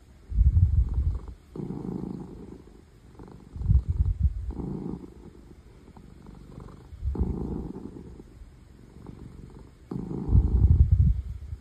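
Ragdoll cat purring very loudly, the purr swelling and fading with each breath in a cycle of about three seconds.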